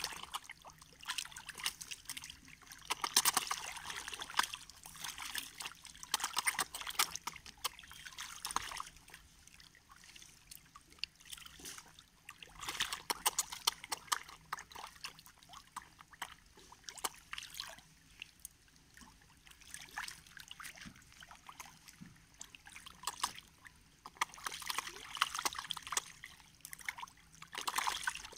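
Catfish thrashing at the surface of the shallow pond edge while feeding, splashing and sloshing the water. The splashing comes in loud spells of a few seconds, with quieter stretches between.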